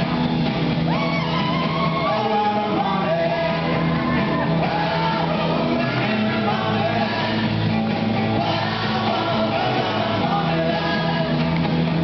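Rock music with shouted singing over electric guitar and held bass notes.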